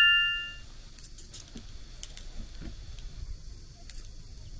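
Metal barbecue skewers clinking. A struck skewer's bright ring dies away in the first half-second, then light scattered clicks of metal on metal follow as the skewers are handled.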